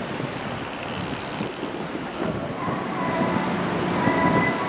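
Steady wind noise on the microphone over the wash of the sea and ship background. About halfway through, a few faint steady tones come in.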